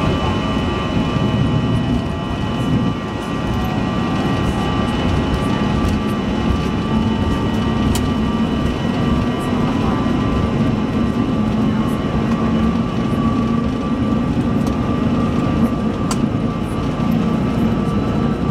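Cabin sound of a Bombardier CRJ-200 taxiing: the steady whine of its two rear-mounted General Electric CF34 turbofans at low power, over the rumble of the wheels on concrete. A couple of sharp clicks come through, about halfway through and near the end.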